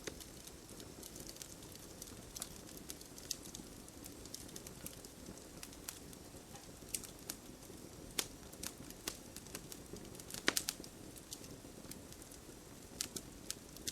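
Campfire burning, with a steady low hiss and irregular sharp crackles and pops of burning wood, a louder cluster of pops about ten and a half seconds in.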